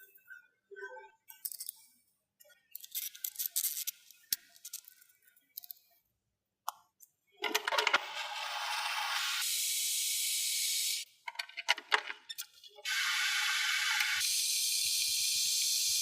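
Manual hand drill being handled with scattered metallic clicks and rattles, then cranked in two long, steady stretches of grinding, whirring noise, each lasting three to four seconds.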